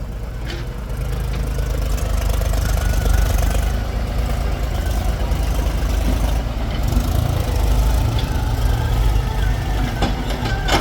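Heavy diesel engine of earthmoving machinery, a backhoe loader or tractor, running steadily at a low, even throb.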